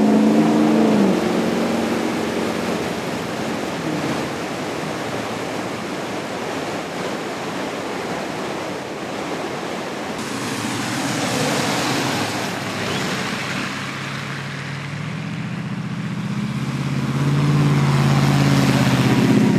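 Steady rushing noise of a flooded river pouring under a road bridge. A vehicle engine hums briefly at the start, and another rises and grows louder over the last few seconds.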